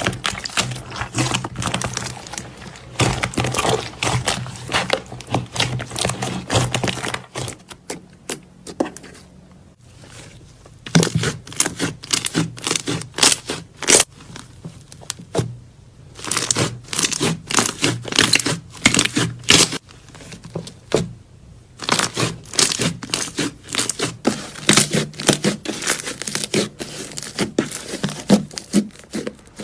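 Slime being squeezed and worked by hand, giving dense runs of crackling, popping and sticky tearing sounds, broken by a few short pauses.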